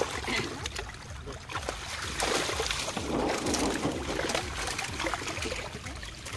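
Water splashing and sloshing in shallow water as fish thrash in a drawn-in seine net and are scooped out by hand, with many small irregular splashes.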